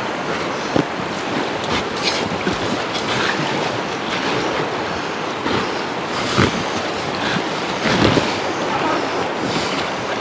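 River rapids rushing steadily, with a few short splashes as a packraft is paddled through the white water.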